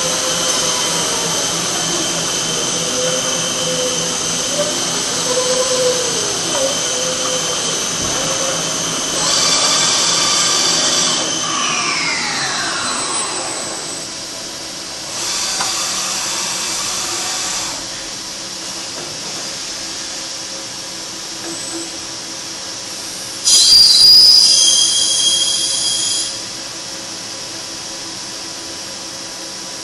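MTE BF4200 CNC milling machine running a circle-milling test program with its universal head at 90 degrees: a steady high spindle whine, with lower motor tones swelling and falling in pitch as the axes trace circles. About 11 seconds in, the whine winds down in a falling pitch. After that come two stretches of louder hissing, the loudest near the end with whistle-like tones for a few seconds.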